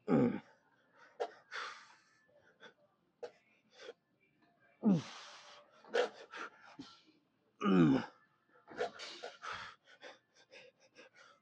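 A man's groans of effort while straining through leg extension reps, three times, each sliding down in pitch, with sharp hissing exhales and gasps between them.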